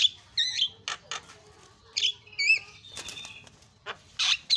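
Javan myna calling: sharp whistled notes that warble up and down, mixed with short harsh rasping notes. A flurry of wing flapping comes near the end.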